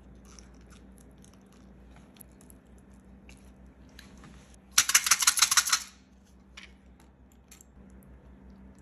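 Raw chicken breast being folded and pressed on a wooden cutting board, with small soft clicks and squishes. About five seconds in comes a loud, fast rattle lasting about a second, from a box of wooden toothpicks being shaken.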